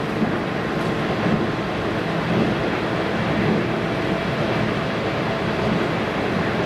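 Running noise inside a JR East 719 series electric train: a steady traction motor hum under the rumble of wheels on rail. This train's motor sound is unusual, unlike a normal 719 series.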